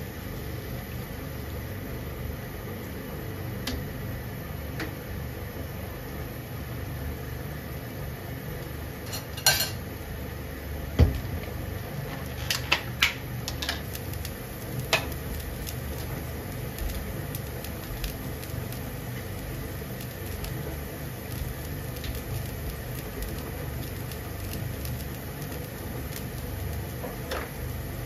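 Water boiling in a frying pan with bean sprouts and meatballs, a steady rushing noise. A handful of sharp clinks and knocks of kitchenware come in the middle, the loudest about eleven seconds in.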